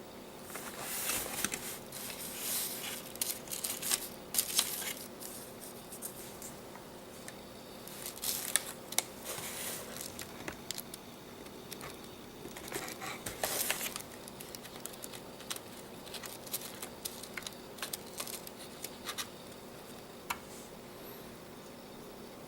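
Keyboard packaging being handled and opened: irregular crinkling, tearing and rustling with scattered sharp clicks and taps, busiest in the first half and thinning out toward the end.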